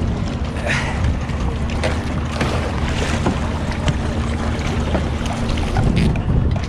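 Wind buffeting the microphone over water sloshing at the side of a small boat, with scattered splashes and knocks as a hooked snoek thrashes at the surface and is swung aboard. A faint steady hum runs under it, stopping near the end.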